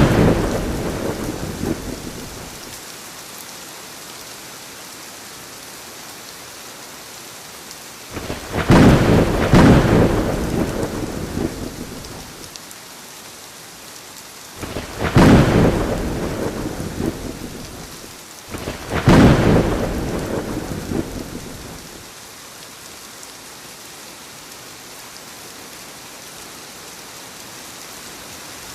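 Thunderstorm: steady rain hissing throughout, with several peals of thunder. Each peal breaks sharply and rolls away over a couple of seconds. One is fading at the start, three more come through the middle, and the last third is rain alone.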